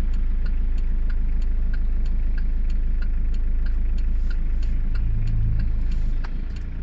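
Car engine idling steadily, with a light, regular ticking of about three clicks a second. It drops slightly in level about six seconds in.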